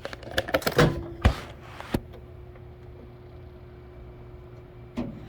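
Handling noises: a run of sharp clicks and knocks and a short rustle in the first two seconds, then a faint steady hum with one more click near the end.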